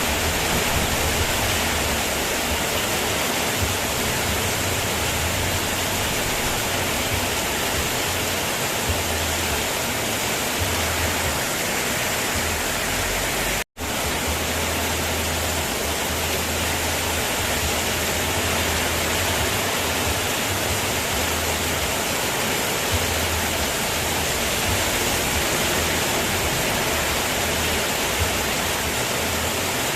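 Steady heavy rain, an even unbroken hiss, cutting out for an instant about fourteen seconds in.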